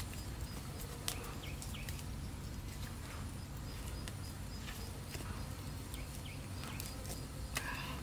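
Small wood fire crackling, with scattered sharp pops and clicks, over a steady low rumble. A few faint high chirps of birds come through.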